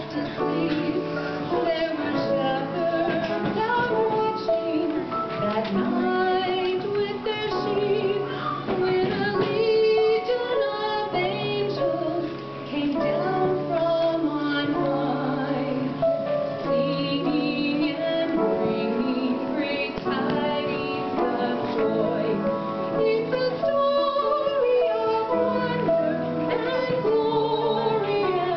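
A woman singing a solo Christmas song over instrumental accompaniment, her voice carried through a microphone, with held low bass notes underneath.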